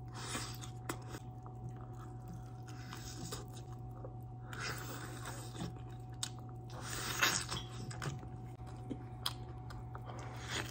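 A person chewing and biting, mouth close to the microphone: a spoonful of rice, then bites of a barbecued turkey leg, coming in irregular spells with small wet clicks. A steady low electrical hum runs underneath.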